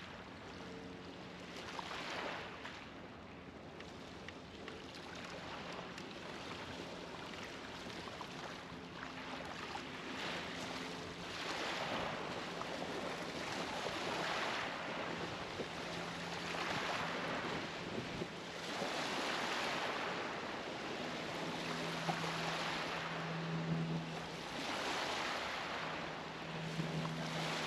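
River waves washing against a stone bank in repeated swells every two to three seconds, over a low steady hum that grows louder near the end.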